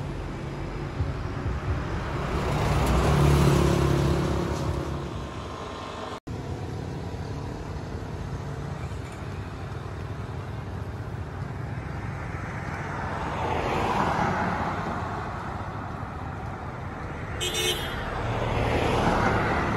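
Street traffic: motorbikes and cars passing one after another, each swelling and then fading. A short high-pitched toot comes a little before the end.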